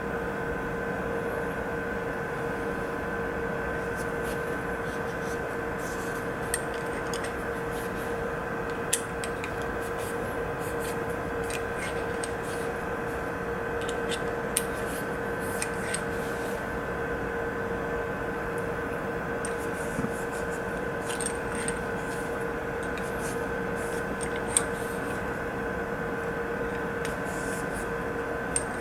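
A steady background hum with a few fixed tones, under scattered light clicks and taps as the small parts of a Glock 43 pistol and a metal cleaning rod with patches are handled during cleaning.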